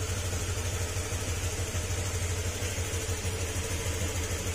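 Honda Click 125 scooter's single-cylinder four-stroke engine idling steadily, with an even low pulsing.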